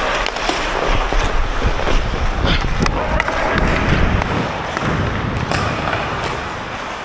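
Ice hockey skate blades carving and scraping on the ice, with many sharp clacks of sticks and puck, heard close up from a camera worn by a skating player, over a low rumble.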